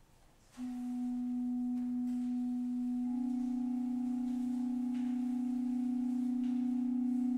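Organ holding a soft, pure-toned note that does not fade; about three seconds in a second, slightly higher note joins, and the two are held together.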